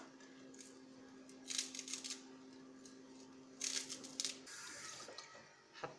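A small kitchen knife cutting crisp celery and fresh herb stems (coriander and parsley) by hand, in two quick clusters of snappy cuts about a second and a half in and just under four seconds in. A faint steady hum sits underneath until about four and a half seconds.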